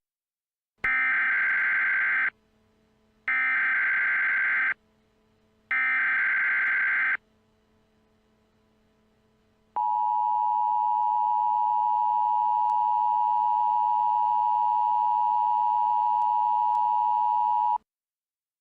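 Emergency Alert System SAME header: three harsh, screeching digital data bursts of about a second and a half each, followed by the EAS two-tone attention signal, a steady loud tone lasting about eight seconds that cuts off abruptly near the end. Together they mark the start of a new alert message.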